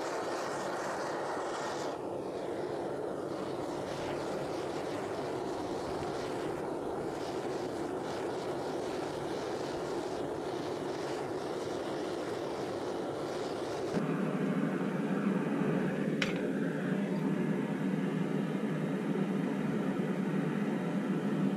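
Metal-melting furnace running with a steady rushing noise while aluminium melts in its crucible. About two-thirds of the way through, the sound cuts to a different steady hum without the deep rumble, and a single short click follows a couple of seconds later.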